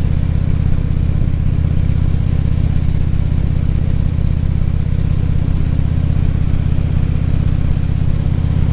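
2014 Harley-Davidson Ultra Classic Limited's V-twin engine running steadily at cruising speed, heard through the rider's helmet microphone.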